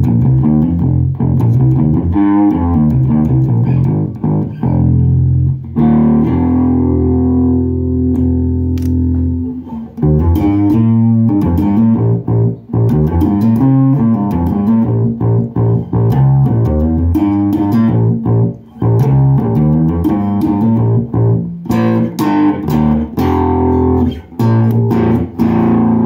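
Electric bass guitar played through an Orange AD200 Bass MK3 valve bass amp head with four 6550 output valves, mixing quick plucked runs with longer held notes.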